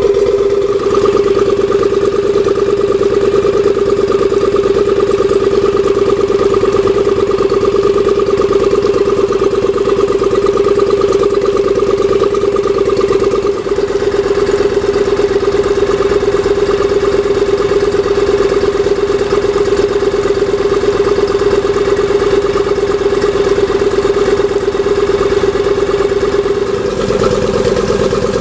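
Suzuki 25 hp four-stroke outboard with a V-twin, single-carburettor engine, idling steadily out of the water with its cowling off.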